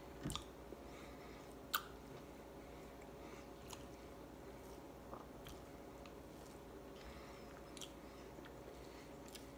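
A man eating rice by hand: faint chewing with scattered sharp clicks, the loudest a little under two seconds in.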